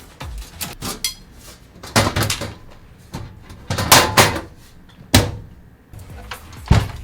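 Knocks and clatter of an empty PC case's parts being handled and fitted back together: several bursts of rattling and bumps, with a sharp knock about five seconds in.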